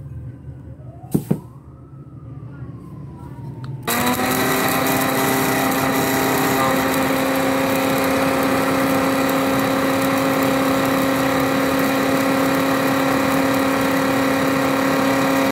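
Electric mixer grinder switching on about four seconds in and running steadily with a loud whine, grinding chopped pistachios into powder. A single click comes about a second in, before the motor starts.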